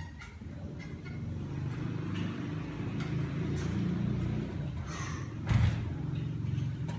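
Exercise bike running with a steady low whir as it is pedalled, and a single loud thud about five and a half seconds in.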